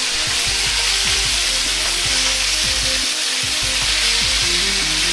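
Sliced pork searing in oil in a very hot wok: a steady, even sizzle. The meat is left to sear rather than being tossed.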